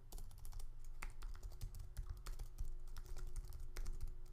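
Typing on a computer keyboard: a quick, uneven run of keystrokes entering a web address, with a faint steady hum behind it.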